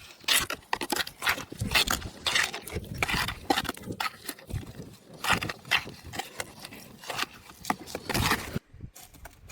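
Irregular scraping and knocking strokes of hand tools working a concrete mix of cement and gravel.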